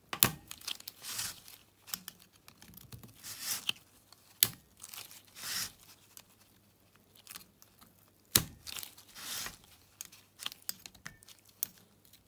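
Large steel circlip being worked into the groove of an ATV clutch drum: metal scraping and rustling, broken by three sharp clicks, near the start, about a third of the way in and about two-thirds of the way in.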